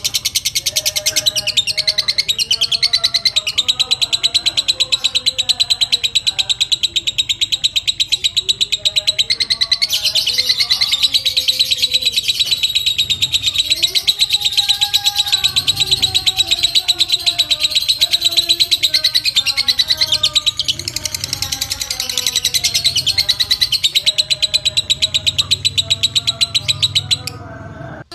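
Fighter lovebird in a long ngekek: a continuous, very rapid, high-pitched rattling chatter that breaks off briefly near the end, with softer lower bird calls underneath.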